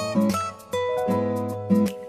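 Background music with strummed acoustic guitar chords.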